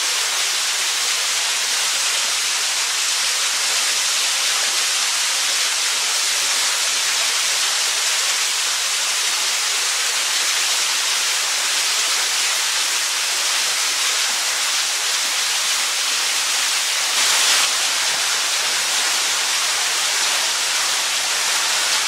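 Small waterfall pouring down a rock face and splashing onto the rocks below, a steady hiss of falling water. One short, louder burst of noise comes about three-quarters of the way through.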